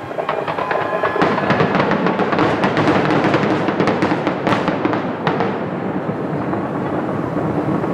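Fireworks bursting and crackling: a dense run of sharp pops starts about a second in and thins out after about five seconds. Music plays underneath.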